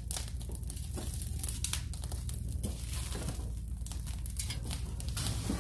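Wood fire crackling and popping in an open fireplace, freshly stoked and flaring up, with dense sharp pops throughout.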